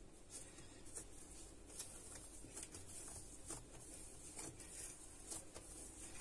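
Faint, irregular soft pats and squishes of hands pressing and folding risen yeast dough on a stone countertop, knocking the trapped air out of it.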